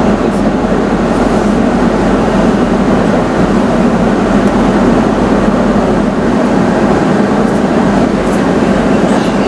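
Indoor shuttle tram running, heard from inside its cabin: a loud, steady rumble.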